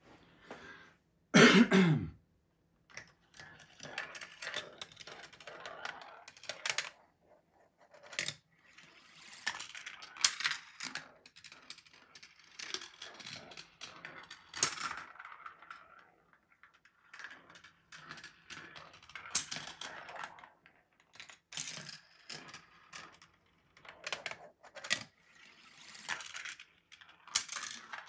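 Marbles running through a GraviTrax plastic marble run: a near-continuous irregular rattle of rolling, with many sharp clicks and clacks as they drop through pieces and set off hammers, cannons and switches. A brief loud sound with a falling pitch comes about a second and a half in.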